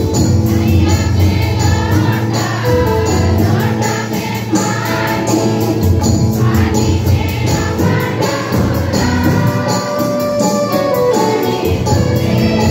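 A congregation singing a hymn together in chorus, with hand clapping, over a quick, steady beat from a hand drum and an electronic drum pad played with sticks.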